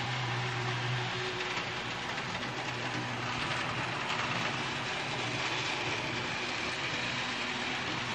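Model steam locomotive running around a model railroad layout under DCC control: a steady running noise of the model train on the track, with a low hum in about the first second.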